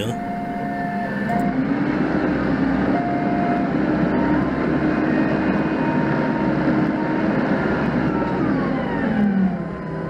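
Doosan 4.5-ton forklift engine heard from the driver's cab while it drives along. It rises in pitch about a second and a half in, runs steadily, then drops back near the end as the machine slows.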